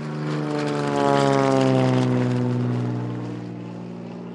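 Propeller aircraft flying low past overhead. Its engine note grows louder to a peak between one and two seconds in, then fades as the pitch falls away.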